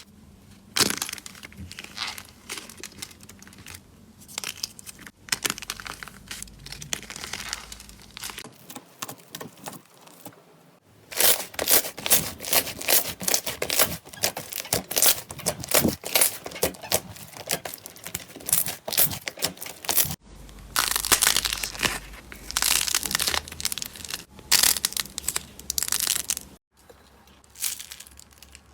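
Slime being squeezed, stretched and pressed by hand: dense runs of crackling and popping clicks, in several short clips that change abruptly, loudest and busiest from a little before halfway to near the end.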